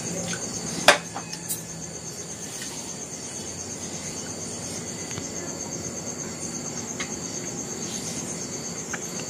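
A cricket chirping in a steady, rapid, high-pitched pulsing trill. A single sharp click comes about a second in, and a few faint ticks follow later.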